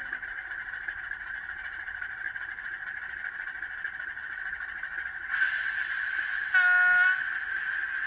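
Class 74 electro-diesel locomotive sounds played by an N gauge model's DCC sound decoder through a tiny sugar-cube speaker. A steady running hum gets brighter about five seconds in, and a single short horn blast follows about a second later.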